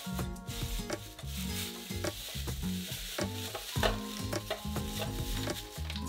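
Plastic produce bags rustling and crinkling as they are pushed into clear plastic storage bins, with light knocks against the bins' walls. Soft background music plays under it.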